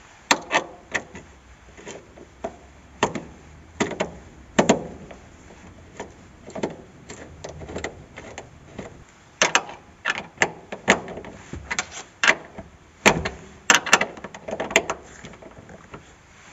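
Wrench turning a nut on a metal bracket bolt: irregular sharp clicks and knocks of metal on metal, several in quick succession at times.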